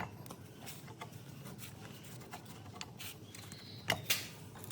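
Scattered light clicks and knocks of tools and engine parts being handled, with two louder knocks close together about four seconds in.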